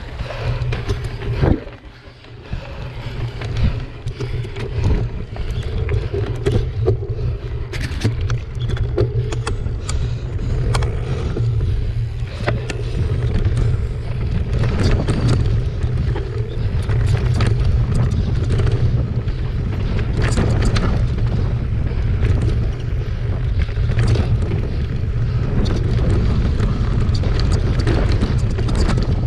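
Wind buffeting the microphone of a handlebar-mounted action camera on a mountain bike riding rough dirt singletrack, a steady low rumble, with frequent rattles and knocks from the bike jolting over stones and ruts.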